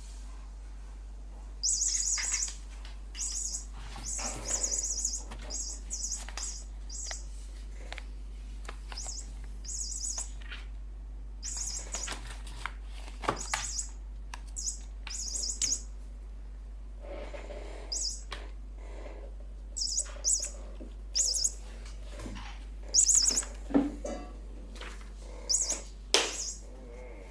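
Bird cat toy chirping in many short, high, buzzy bursts at irregular intervals as it is pawed and chased, with knocks and scuffles of the toy moving about in between.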